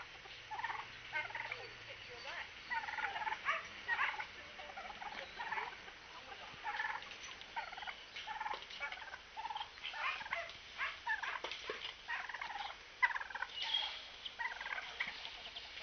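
Turkeys calling over and over in many short calls during feeding time.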